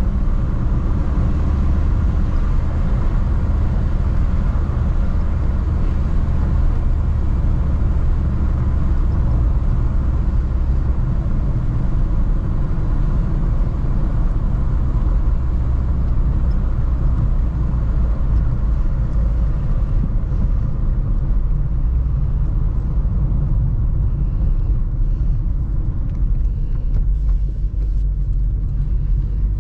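Audi A3 1.8T's turbocharged four-cylinder (AGU) engine running while the car is driven, a steady low rumble with the engine note thinning out about two-thirds of the way through.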